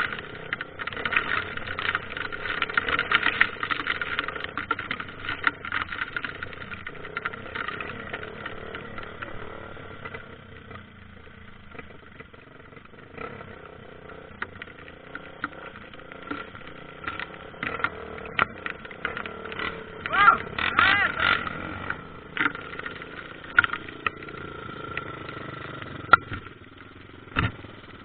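Trail motorcycle engine running, with a steady drone and frequent sharp clicks and knocks.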